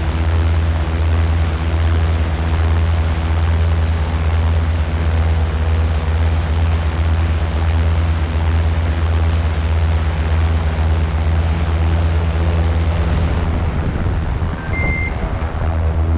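Multirotor drone's motors and propellers humming steadily, heard from on board. Near the end the sound thins a little and a brief high beep sounds once.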